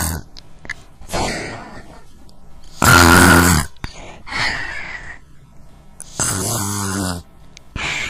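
Cartoon snoring sound effect: two loud rasping snores, about three and six seconds in, each set between softer hissing breaths.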